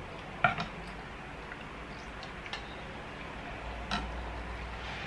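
A few light, irregular clinks of a ladle and spoons against bowls and a pan as soup is served out and eaten, the sharpest about half a second in.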